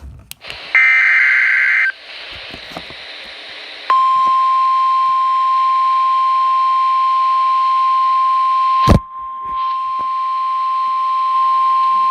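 Emergency Alert System signal on weather radio: a roughly one-second burst of warbling digital header tones, then, about four seconds in, the steady single-pitched 1050 Hz NOAA Weather Radio warning alarm tone, with a sharp crack of static about nine seconds in. The tones announce a new warning broadcast.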